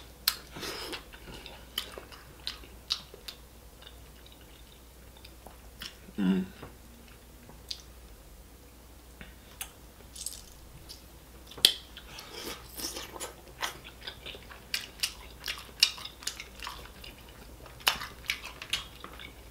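Close-up eating sounds: chewing and biting, with scattered sharp cracks and clicks as shellfish shells are picked and peeled apart by hand.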